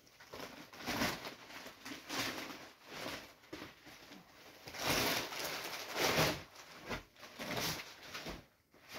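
Deflated vinyl inflatable toy being unfolded and shaken out: the thin vinyl crinkles and rustles in irregular surges, loudest a little past halfway.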